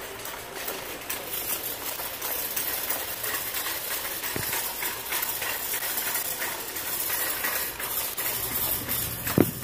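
A metal shopping cart being pushed along, its wheels rolling and its wire basket rattling steadily. A short vocal sound comes near the end.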